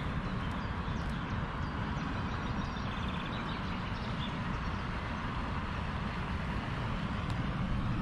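Steady outdoor noise, mostly a low wind rumble on the microphone.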